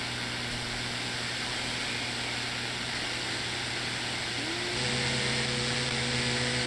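CB radio receiver hissing with static and a low hum on an open channel. About four and a half seconds in, a steady whistling tone slides in and holds, as another station keys up its carrier, and the static grows a little louder.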